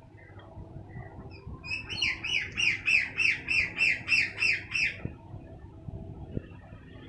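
A bird calling: a quick run of about a dozen short, falling notes, starting about two seconds in and lasting about three seconds.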